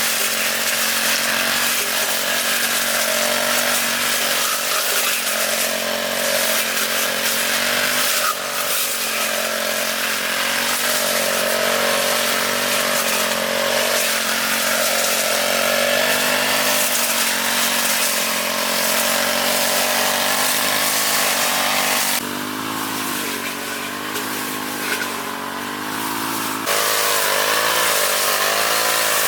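Small petrol engine of a grass cutter running at full throttle, cutting. About three quarters of the way through it eases back to a lower, wavering speed for a few seconds, then opens up again.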